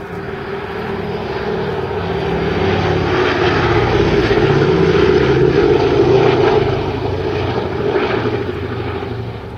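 Boeing B-17G Flying Fortress's four Wright Cyclone nine-cylinder radial engines and propellers in a low flypast. They grow steadily louder to a peak as the bomber passes overhead about halfway through, then fade as it banks away.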